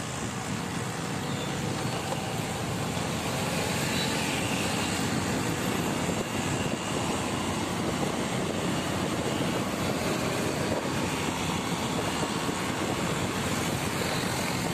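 Steady rush of road and wind noise from riding a motorbike along a wet road: wind on the microphone over engine and tyre noise.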